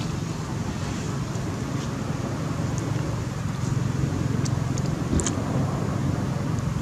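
Steady low outdoor rumble, with a few faint short high ticks about four to five seconds in.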